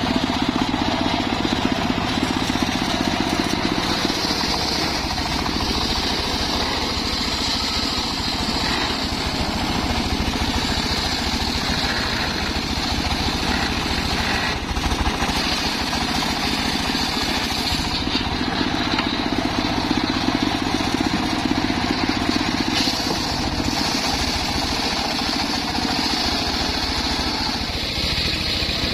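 Homemade engine-driven circular sawmill running steadily, its blade sawing through a log.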